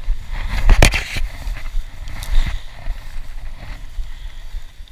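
Handling noise as a spinning rod and reel is picked up out of long grass, over a low wind rumble on the microphone, with a sharp knock about a second in and a couple of lighter clicks after it.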